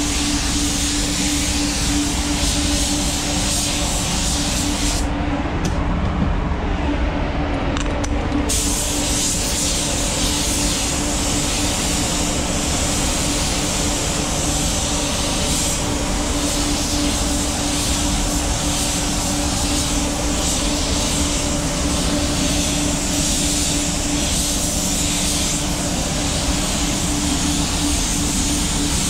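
Paint spray gun hissing as it sprays waterborne basecoat in passes, over a steady hum from the spray booth. The hiss stops for about three seconds, five seconds in, while the trigger is released, then carries on.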